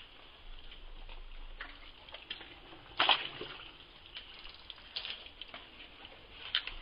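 Scattered splashes and sloshing of shallow muddy water as hands dig through swamp mud for mangrove clams, with one louder splash about three seconds in.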